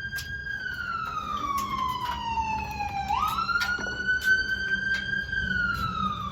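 Siren wailing. Its pitch jumps up, holds, then slides slowly down, and the cycle repeats about every three seconds. A few sharp clicks sound over it.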